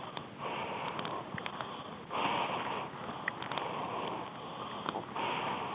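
A person breathing in and out close to the microphone, about one breath every second and a half, with a few light clicks in between.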